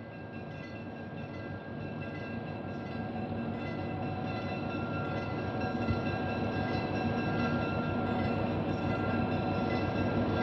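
Diesel-electric locomotives leading a freight train, their engines running as they approach and draw alongside, growing steadily louder, with a steady high whine over the engine rumble.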